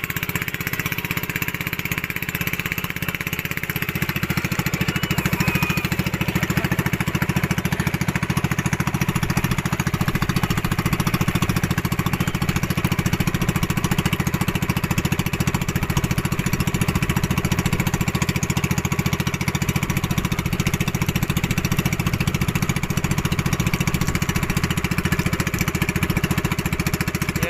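Tow boat's engine running steadily, opening up about four seconds in and then holding at a louder, even run as it pulls the banana boat.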